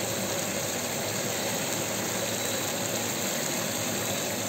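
Steady roar of a restaurant wok station, its gas burner running under a wok of simmering chilli sauce.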